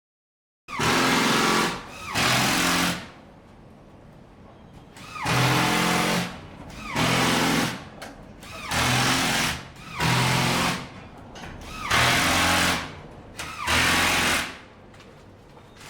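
Power tool run in eight short bursts of about a second each, with a faint steady running sound between them; it starts under a second in, after a moment of silence.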